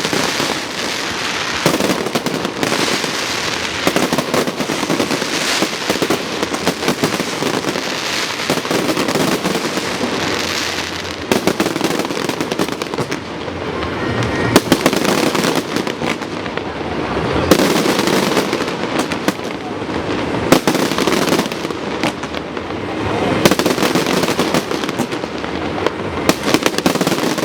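Fireworks display: a continuous barrage of crackling with many sharp bangs following one another throughout.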